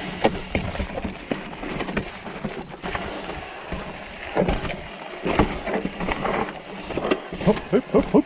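Full-rigid Salsa Beargrease mountain bike on 29+ tyres rolling fast over rocky dirt singletrack: a steady rumble of tyres on dirt, broken by many sharp knocks and rattles as the rigid bike hits rocks and bumps.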